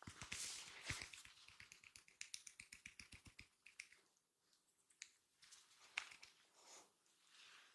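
Rapid percussive hand tapping of a massage, a fast run of sharp slaps about eight to ten a second for roughly three and a half seconds, then a few scattered single taps.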